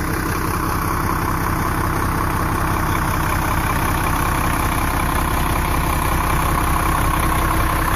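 Rear-mounted diesel engine of a 1993 Gulfstream Friendship diesel-pusher motorhome idling steadily, a little louder near the end.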